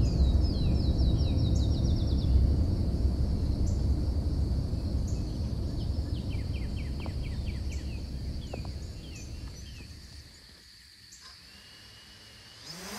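Wind buffeting the microphone, with a small bird singing two trills of quick descending chirps and a steady high-pitched tone underneath. The wind dies away about ten seconds in, leaving the bird and the tone.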